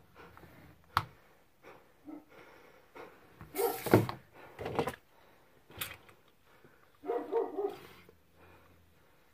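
A dog barking in quick runs of several barks, once about three and a half seconds in and again about seven seconds in, with a few sharp knocks in between.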